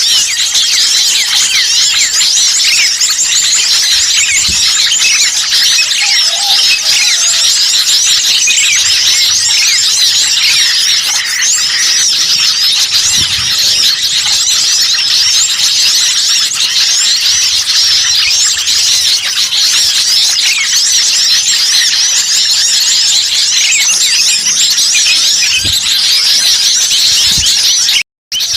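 A dense chorus of many small songbirds chirping and twittering at once, quick high calls overlapping without a break: a bird-lure recording of noisy, agitated small birds. The sound cuts out for a split second near the end.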